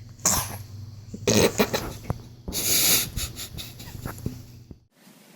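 A baby's loud, breathy sneezing and wheezing, three strong bursts with smaller breaths between, over a low steady hum that cuts off abruptly near the end.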